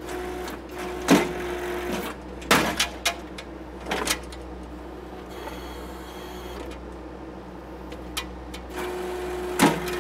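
Case TV450 skid steer's engine running, heard from inside the cab, with a steady hydraulic whine near the start and again near the end as the Blue Diamond post driver works. About half a dozen sharp, irregular clanks come from the post driver on the wooden post.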